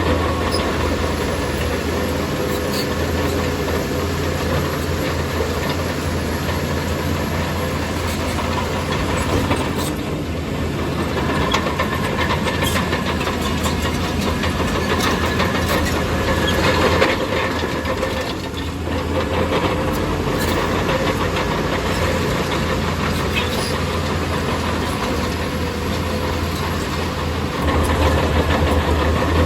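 Heavy diesel earthmoving machinery running steadily, with a deep constant drone and scattered clanks and knocks.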